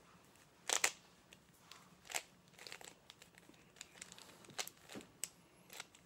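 Plastic 3x3 Rubik's Cube being twisted by hand: irregular clicks and clacks of its layers turning, the loudest pair about a second in.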